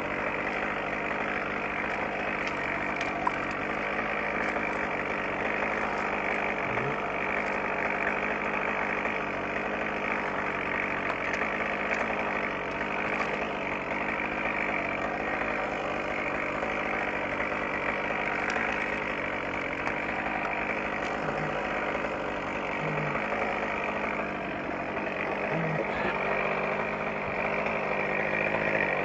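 Engine idling steadily, with an even, unchanging pitch.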